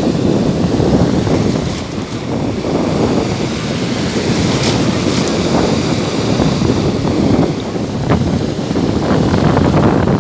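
Black Sea surf washing on a beach, mixed with strong wind buffeting the microphone.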